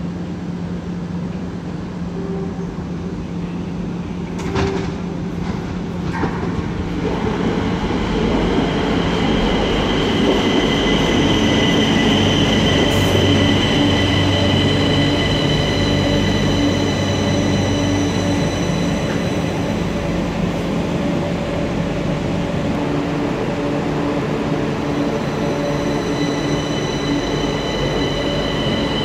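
Madrid Metro Series 6000 electric train running into the station and drawing up at the platform, a steady high electric whine over its rumble. It grows louder about eight seconds in, with a couple of light knocks before that.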